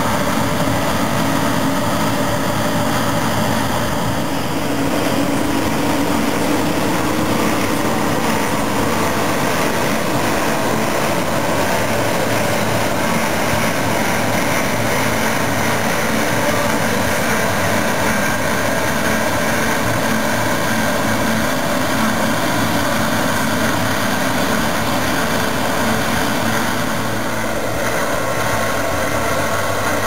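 Claas Lexion 540 combine harvester running steadily under load while harvesting, its engine and threshing machinery making a continuous loud drone.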